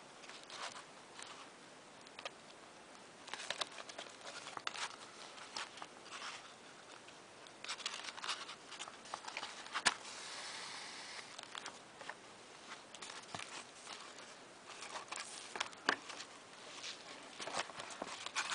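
Paper and card pages being handled while a booklet is hand-sewn with needle and thread: scattered light rustles, taps and scrapes, with one longer rasp about ten seconds in.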